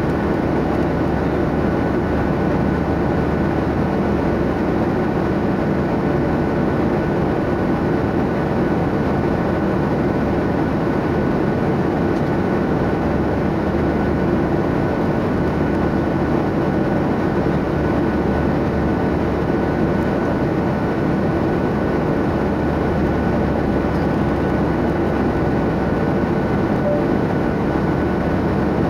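Airliner cabin noise in flight: a steady, unbroken rush of engine and airflow noise with a faint thin high tone running through it.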